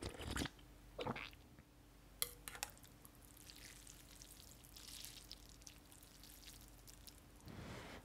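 Instant ramen noodles lifted out of broth and falling back into a ceramic bowl: soft wet splashes and broth dripping, with a few light clicks a little after two seconds in.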